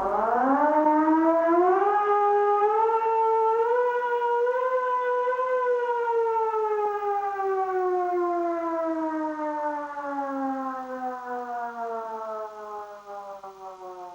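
Russian civil defence warning siren sounding: its pitch rises in steps for about four to five seconds, holds briefly, then slides slowly downward and fades out near the end.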